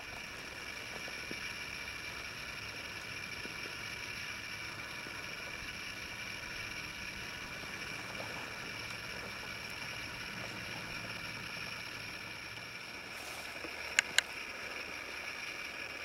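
Quiet pine-forest ambience: a steady faint hiss with a few thin steady tones running through it, and two short sharp clicks close together near the end.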